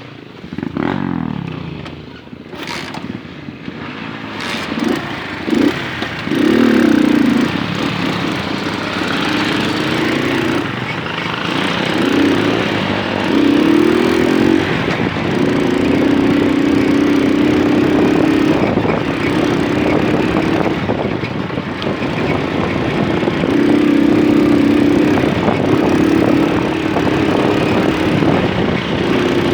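Moped engine running under way, its note rising and falling with the throttle over the first several seconds, then holding fairly steady with brief dips, over steady wind and road noise.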